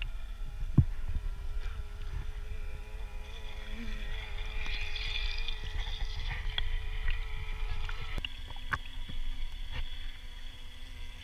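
Wind rumbling on the microphone, with a sharp knock about a second in. Under it runs a faint steady hum that drops in pitch about eight seconds in.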